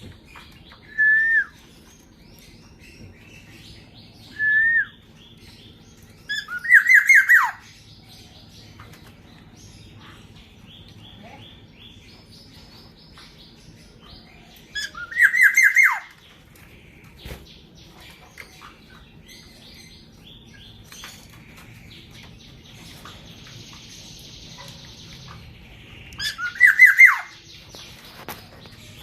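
Black-naped orioles calling. There are two short whistled notes in the first five seconds, then three loud calls spread through the rest, each a quick run of notes ending in a falling slide. Softer chirps from other birds and a low steady hum run underneath.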